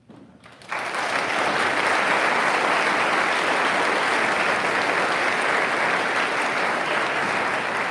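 Audience applauding. The clapping breaks out suddenly less than a second in and holds steady and loud.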